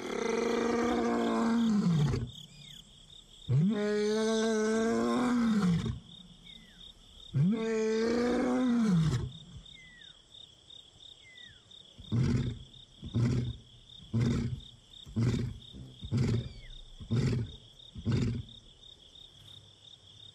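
Male lion roaring: three long roars, then a run of short grunts that trail off, the usual close of a roaring bout. It is a contact call to a missing brother from his coalition.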